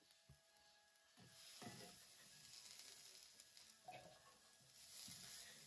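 Faint sizzling of garlic scapes frying in a cast-iron skillet, softening in the heat, with a few soft knocks.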